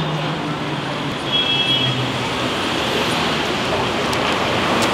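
Steady city street traffic noise, with faint voices at times.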